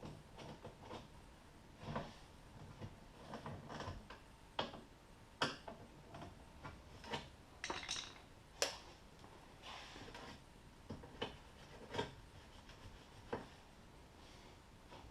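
Irregular light clicks and knocks of hand work: a screwdriver and plastic door-trim parts being handled while screws are driven in, with a dozen or so scattered taps at uneven gaps.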